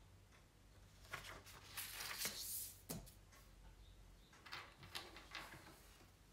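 A loose sheet of paper rustling and swishing as it is handled and tossed, loudest about two seconds in, followed by a single sharp tap and then a few softer paper rustles.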